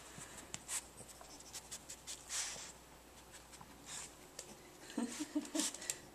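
Soft rustling and handling noise with scattered small clicks and a few short breathy hisses.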